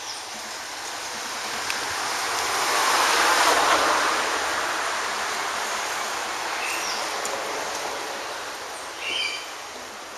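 Traffic noise of a vehicle passing, rising to its loudest three to four seconds in and then fading away. A brief higher sound comes near the end.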